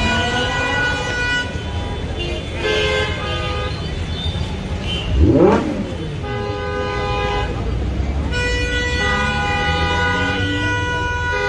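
Car horns honking in long, repeated blasts, with one loud engine rev that rises sharply in pitch about five seconds in.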